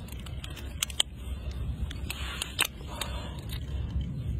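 Scattered sharp clicks and scraping from a live crab being handled and bound with rubber bands, its hard shell and legs knocking in the hands, over a low steady rumble.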